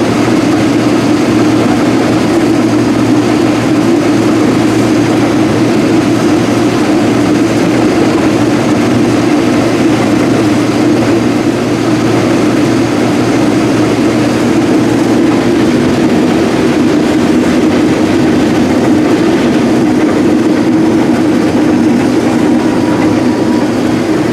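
Rotary combine running steadily while picking corn with its corn head: an even, unchanging machine noise with a strong low hum.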